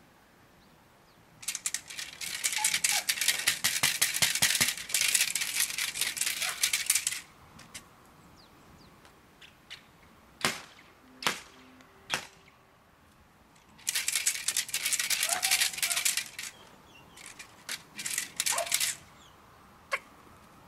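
Dense rattling crackle in two long bursts, the first about six seconds long and the second shorter, followed by a few brief ones, with single sharp cracks in between. This is a protection-dog helper's distraction noise from a stick and a crinkled plastic tarp, aimed at a Malinois held in a down.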